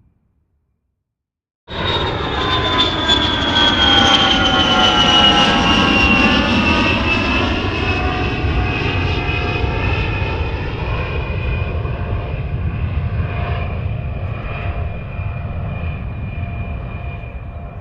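Jet aircraft flying past: it cuts in suddenly after a short silence, a loud rumble with a high turbine whine that falls slowly in pitch, then eases off gradually.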